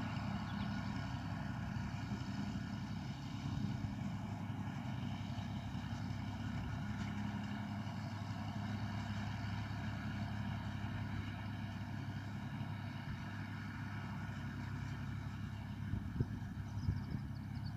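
Massey Ferguson 135 tractor engine running steadily at an even pitch.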